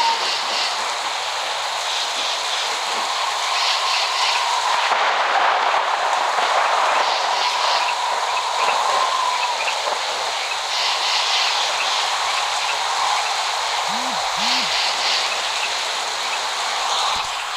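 Steady rain falling: an even hiss with no thunder heard, and a faint held high tone running through it for a few seconds in the middle.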